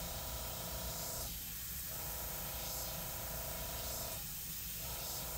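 Dual-action gravity-feed airbrush spraying with the air left constantly on, a steady hiss while dagger strokes are laid down. A humming tone runs under the hiss and breaks off twice for about half a second.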